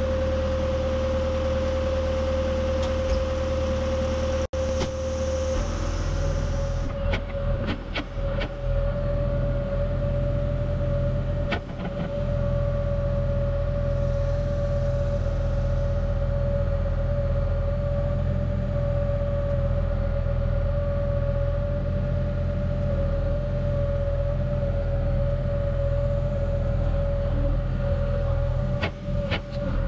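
Excavator running, its engine a steady drone with a constant whine over it, heard from a camera on the bucket so the audio is rattly. A few sharp rattles and knocks come as the bucket moves, clustered about seven to nine seconds in, again near twelve seconds, and near the end.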